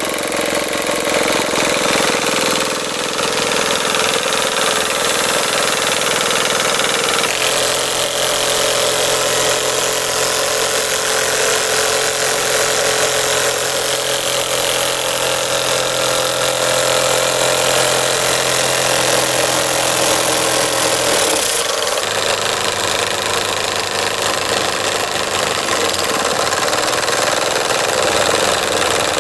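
Model two-cylinder steam engine running steadily, with a constant hiss, as its flywheel drives a small dynamo. Its running note changes abruptly about seven seconds in and again about twenty-one seconds in.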